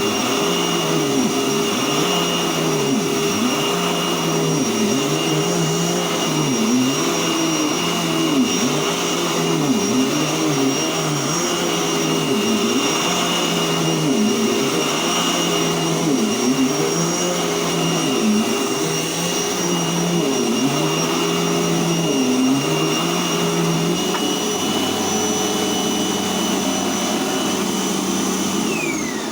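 Dirt Devil Breeze upright vacuum cleaner running: a steady high motor whine over a rush of airflow, its lower sound rising and falling regularly about every two seconds. Near the end it is switched off and the whine falls away as the motor winds down.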